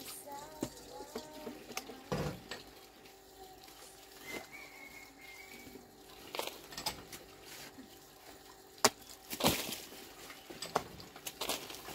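Scattered sharp knocks and clicks from handwork, the loudest pair about nine and nine and a half seconds in. A dove coos briefly at the start.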